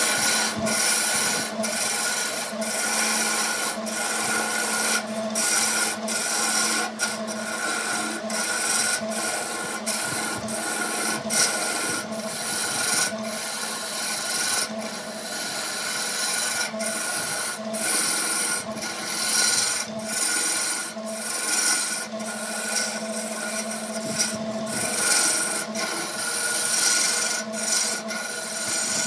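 A Burt wood lathe runs with a steady motor hum while a hand-held turning tool cuts the spinning wooden blank. The cutting makes a continuous scraping, rasping hiss that drops out briefly many times as the tool eases off the wood.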